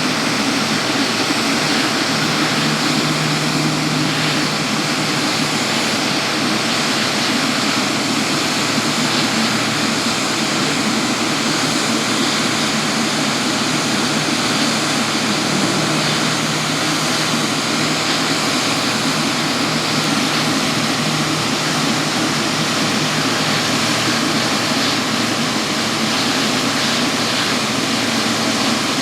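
Jet airliner engines running: a steady, even rushing noise with a low hum underneath.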